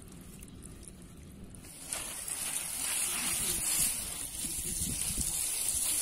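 Water spraying and splashing onto mint plants. It starts about two seconds in and then carries on as a steady hiss.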